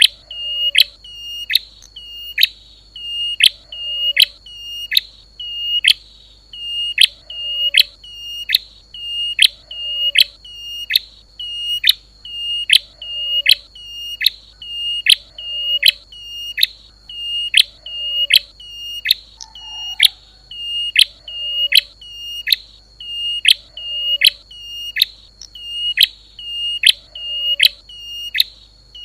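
Recorded prenjak (prinia) call played as a lure: a sharp, high-pitched note repeated over and over at an even fast rhythm, several notes a second, with a steady high tone beneath.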